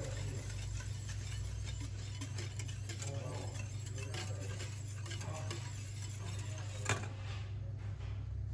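Wire whisk ticking and scraping against a stainless steel saucepan as it stirs a thin coffee-and-milk mixture, over a steady low hum. A single sharp click comes about seven seconds in.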